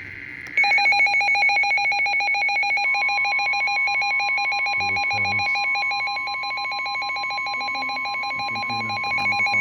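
Midland weather radios sounding their alert for a severe thunderstorm warning: a rapid, pulsing electronic alarm starts about half a second in. About three seconds in, the steady 1050 Hz NOAA Weather Radio warning tone joins it.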